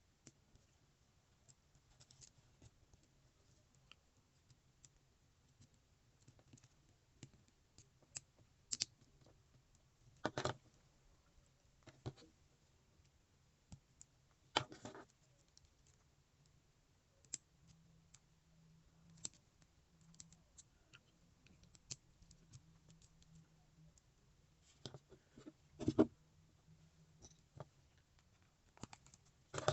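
Lego Technic plastic parts being handled and fitted together: scattered light clicks and taps, with a few louder clacks.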